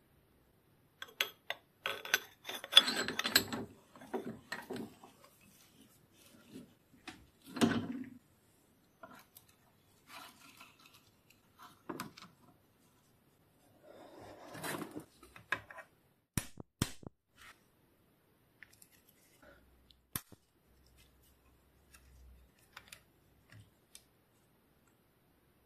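Tools and parts of a hydraulic bicycle brake bleed kit being handled: irregular bursts of rustling and rubbing, with sharp clicks in between. The loudest rustling is about two to four seconds in, and a quick run of clicks comes about sixteen seconds in.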